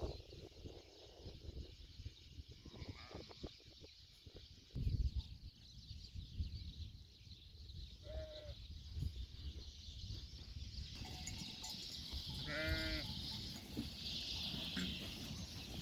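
Livestock bleating: two short calls, one about eight seconds in and a longer one about thirteen seconds in, over a low rumble with a louder burst of it about five seconds in.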